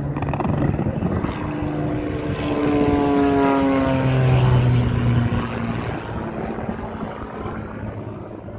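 Propeller aerobatic plane's piston engine passing by, its drone falling in pitch as it goes past, loudest about four to five seconds in and then fading.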